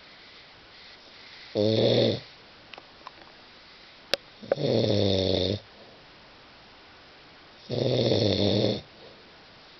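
Snoring: three loud, pitched snores about three seconds apart, each lasting about a second, with quiet gaps between. A sharp click comes just before the second snore.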